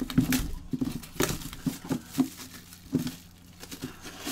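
Clear plastic shrink-wrap crinkling and crackling in gloved hands as a trading card box is unwrapped, in irregular short bursts.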